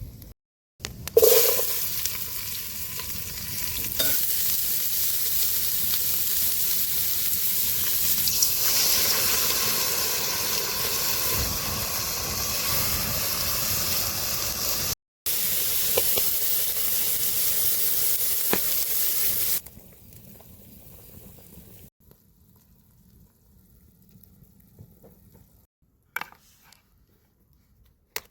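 Vegetables sizzling in hot oil in a pot as they sweat, a loud steady sizzle that starts suddenly about a second in. It breaks off for an instant about halfway and drops to a faint hiss about two-thirds of the way through, with a few light clicks near the end.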